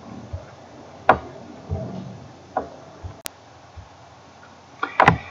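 A few light knocks and clicks at irregular intervals over a faint steady hiss. The loudest comes about a second in, and a short sharp click falls a little after three seconds.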